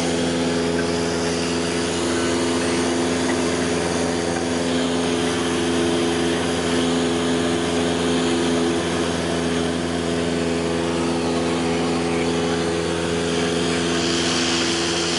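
Cessna 172's piston engine and propeller droning steadily in flight, heard inside the cabin, with a steady rush of air over the airframe.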